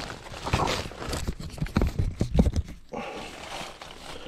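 A person clambering through a cramped attic: irregular knocks and thumps against the timber joists, with rustling as he moves.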